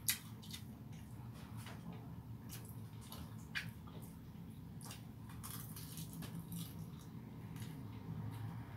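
Close-up eating sounds: soft chewing and small wet, squishy mouth noises, with scattered light clicks of fingers picking rice off a plate, the sharpest right at the start and another about three and a half seconds in. A low steady hum sits underneath.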